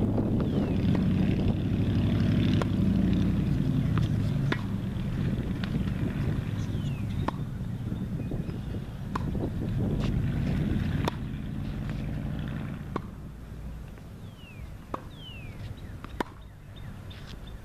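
Tennis balls being struck by rackets and bouncing during a warm-up rally: a sharp pop every second or two. Under them runs a low rumble, which fades about two-thirds of the way through.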